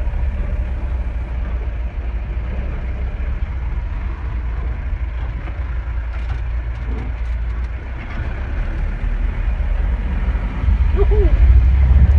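Safari vehicle's engine running, heard from inside the vehicle as a steady low rumble that grows louder about ten seconds in as the engine is revved.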